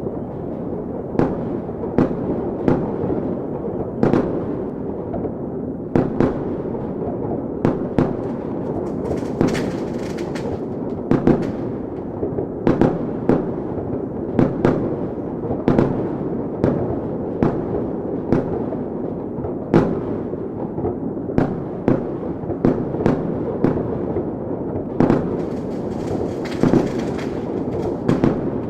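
Chinese fireworks going off in a continuous dense din, with sharper bangs standing out irregularly every second or so. Two spells of hissing crackle come in, about a third of the way in and near the end.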